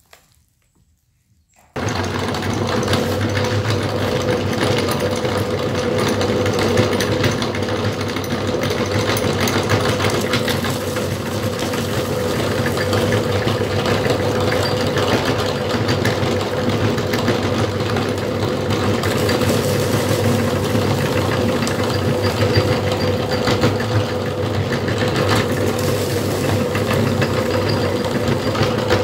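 Motor-driven meat grinder starting suddenly about two seconds in, then running steadily with a constant hum while it grinds puffed corn snack balls into crumbs.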